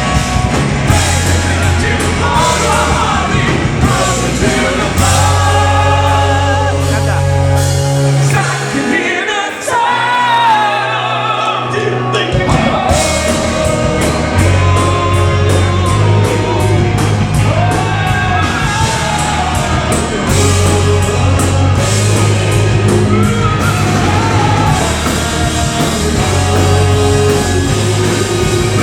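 Melodic rock band playing live, with a male lead singer over the full band. About nine seconds in the bass and drums drop out for a few seconds, leaving the voice nearly alone, then the whole band comes back in.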